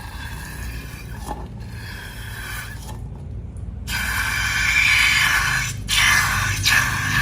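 Slime being handled and mixed: a crackling, sticky scraping, with short pauses, that gets louder about four seconds in.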